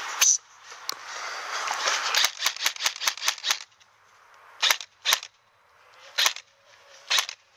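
Airsoft guns firing: a quick string of about nine sharp shots about two seconds in, then four single shots spaced a second or so apart.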